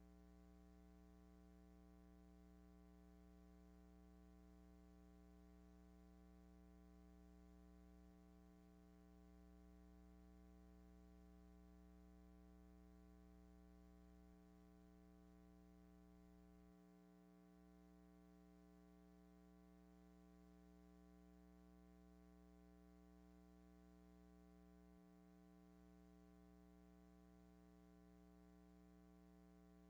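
Near silence: only a faint steady hum, as the film has no soundtrack.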